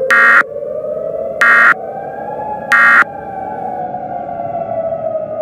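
Three short, harsh electronic data bursts about 1.3 seconds apart, the Emergency Alert System end-of-message tones, over a siren wail that rises slowly in pitch and then falls away.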